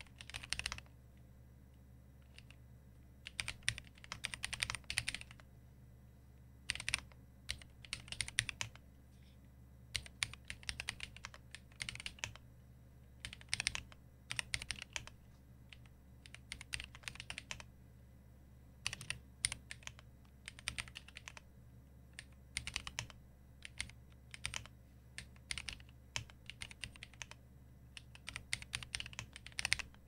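Typing on a Kyria58 split mechanical keyboard with lubed Drop Holy Panda tactile switches and DSA keycaps: fast runs of keystrokes in bursts of a second or two, with short pauses between them.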